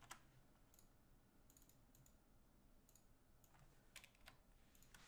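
Faint, scattered key clicks on a computer keyboard, a few single taps with a short run of them about a second and a half in.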